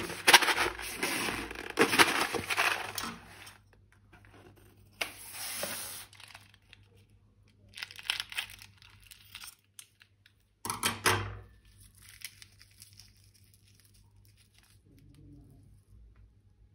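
Crinkling, tearing handling noises from slime-making materials. The loudest stretch comes in the first three seconds or so, followed by short separate bursts with quiet gaps.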